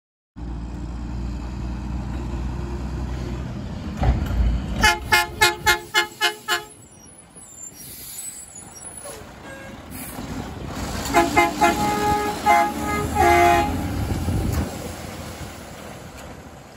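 Hadley H00640U air horn on a Mack LE613 garbage truck, sounded in two runs of rapid short toots about five seconds apart, the second run ending on a longer blast. Between and under them the truck's diesel engine runs as it pulls away.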